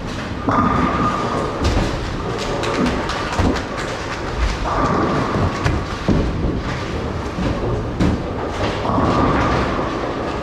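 Bowling alley din: bowling balls rolling and thudding on the lanes, with scattered sharp clacks of pins and balls. A steady mid-pitched hum comes in three times, each for one to two seconds.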